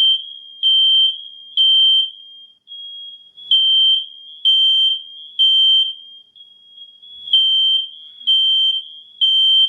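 Fire alarm sounding its piercing high beep in repeating groups of three with short pauses: the temporal-three pattern that signals a fire evacuation. A fainter, steady alarm tone carries on between the loud beeps.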